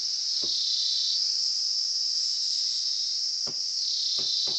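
Steady, high-pitched insect chorus, such as crickets, running throughout. Over it come a few soft taps and strokes of a marker pen writing on a board, several close together near the end.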